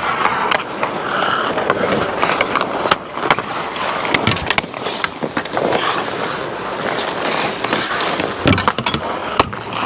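Ice hockey skates scraping and carving on the ice around the goal, with sharp clacks of sticks and puck striking each other throughout.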